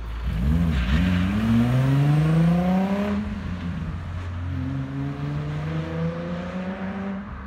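Infiniti G35 coupe's 3.5-litre V6 through the stock exhaust with the muffler deleted, accelerating away: the revs climb for about two seconds, drop at a gear change about three seconds in, then climb again more slowly as the car pulls away. It sounds quiet for a muffler delete.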